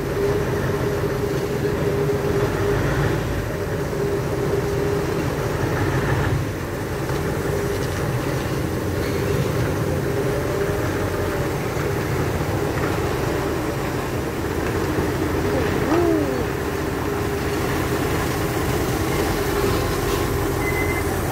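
Diesel engine of a cab-over tractor unit running at low speed as it pulls a container trailer slowly through a tight turn, with a steady whine over the engine note. A short falling squeal comes about 16 seconds in.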